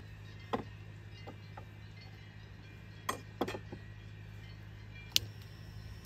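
A handful of short metallic clinks and knocks as a gas canister and a remote-canister camping stove are set down and hooked up on a wooden fold-down board, the sharpest about five seconds in, over a steady low hum.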